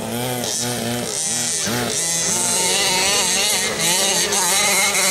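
Small two-stroke petrol engines of 1/5-scale RC cars revving up and down in quick blips as the cars drive, then holding a steadier, higher pitch from about two seconds in.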